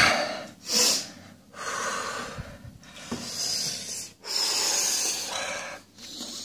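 A man breathing hard through his mouth against the burn of a Carolina Reaper chili. There is a sharp snorting intake at the start, then long, heavy breaths in and out every second or so.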